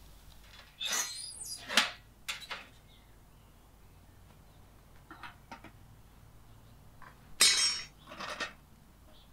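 Dishes and utensils clinking and scraping in a few short bursts. There are two main clusters, about a second in and again about seven seconds in, with smaller knocks between them.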